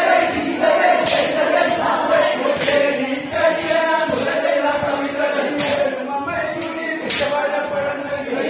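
A group of men singing a chant-like song in unison as they dance, with five sharp beats spaced about a second and a half apart.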